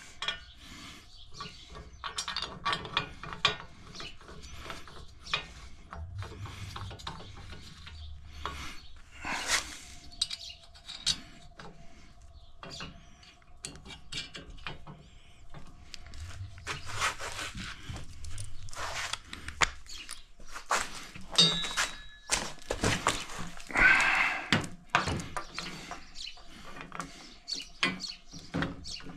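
Metal roof-rack hardware being bolted together by hand: irregular clicks, clinks and knocks of bolts, washers and tools against the rack parts, with some rubbing and a brief squeak late on.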